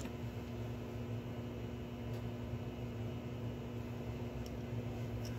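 American Flyer 287 steam locomotive's AC motor running steadily on a rolling-road roller stand, a constant electric hum and whir, with a few faint ticks. The engine is running fine.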